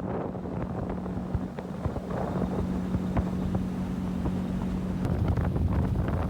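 Boat motor running steadily, with wind buffeting the microphone; the motor and rumble grow louder about five seconds in.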